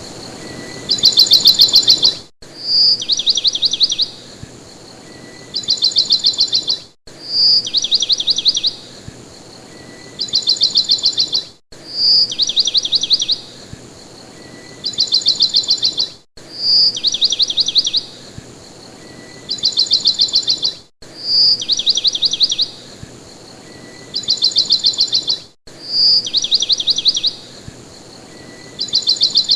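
A songbird singing a high, fast trilled phrase: a short bright note runs into a rapid trill, and a second trill follows about two seconds later. The same phrase repeats identically about every four and a half seconds, with a brief cut in sound between repeats, as a looped recording.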